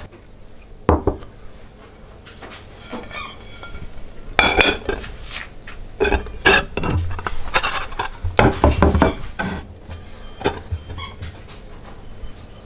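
Dishes clinking and knocking as fried rice is packed into a small bowl with a wooden spatula and the bowl is turned out onto a ceramic plate: a series of sharp clinks and knocks, several ringing briefly.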